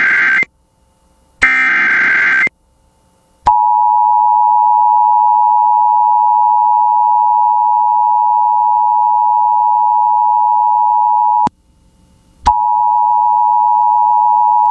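Emergency Alert System broadcast alert. It opens with the end of one SAME header data burst and then a second burst of about a second, screechy warbling digital tones. The EAS two-tone attention signal then holds steady for about eight seconds, cuts off for a second, and starts again near the end.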